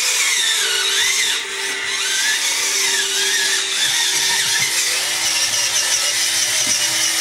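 Small electric motors and gears of radio-controlled construction models whining. The high pitch wavers up and down with the throttle over a steadier lower hum.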